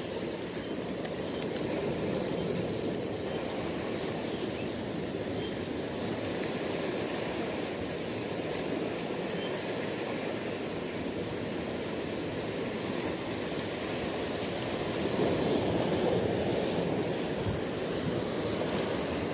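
Sea surf washing and foaming against the rocks below, a steady rushing that swells a little louder about fifteen seconds in.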